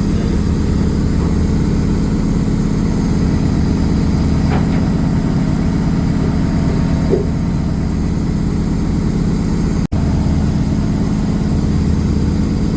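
Mycom refrigeration compressor running steadily on a test run, a loud, even machine hum. The sound briefly cuts out about ten seconds in.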